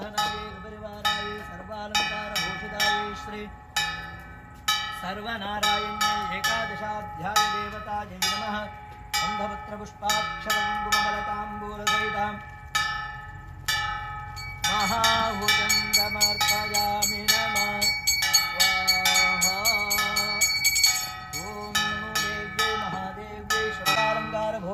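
Temple bells ringing in rapid, repeated strikes that each ring on, with a sliding, wavering melody heard over them at times.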